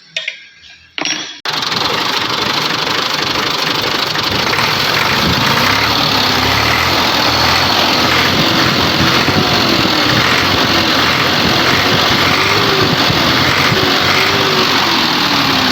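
Massey Ferguson 260 tractor's three-cylinder diesel engine running steadily at idle, its injector nozzles freshly cleaned and pressure-tested. It comes in abruptly about a second and a half in, after a few short knocks.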